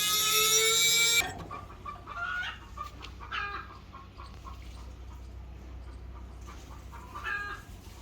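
Chickens clucking in short calls, about three bouts, over a low hum. At the start a loud, steady, high-pitched tone cuts off suddenly about a second in.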